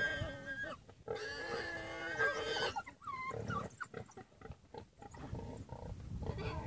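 Warthog squealing in distress as African wild dogs attack it: long, shrill, held squeals with brief breaks in the first few seconds, then shorter, bending cries.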